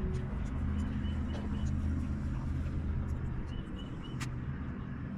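Low, steady engine hum, with faint short chirps repeating in groups of about three.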